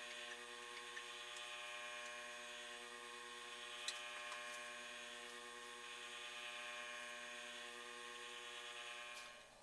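Faint, steady electrical hum, with a single light click about four seconds in; the hum stops just before the end.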